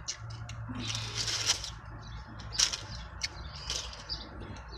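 Close-up eating sounds: chewing and lip smacking on fried chicken wings and fries, coming in short wet, crackly bursts, over a low steady hum.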